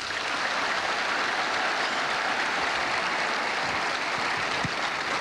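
Large crowd applauding: a steady, even wash of clapping that holds at one level throughout.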